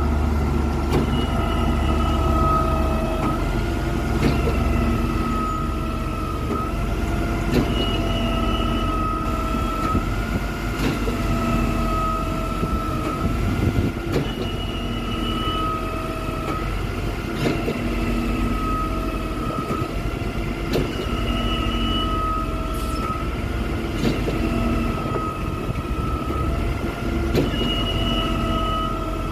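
Truck-mounted concrete pump running under load as it pumps ready-mix concrete: a steady engine and hydraulic whine, with a knock and a brief rise in the whine about every three and a half seconds as the pumping cylinders change stroke.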